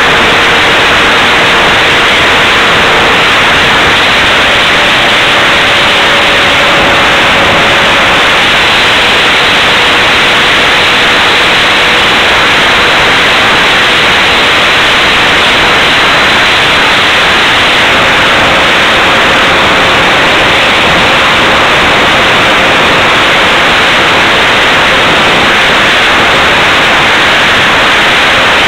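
Loud, steady rushing roar of airflow and the 75mm electric ducted fan of an HSD Viper model jet in flight, picked up by a camera mounted on the plane. The sound is hissy and saturated, with a faint hum underneath that drifts slightly in pitch.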